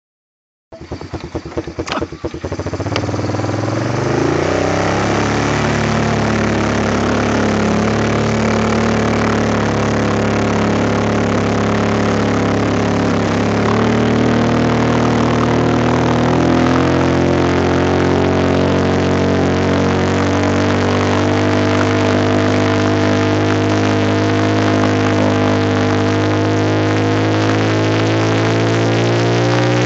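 ATV (four-wheeler) engine: rapid pulsing in the first few seconds, then running steadily with its pitch slowly rising.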